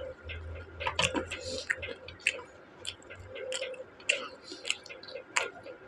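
Close-miked chewing and mouth sounds of a person eating an onion pakoda: many short, irregular wet clicks and smacks.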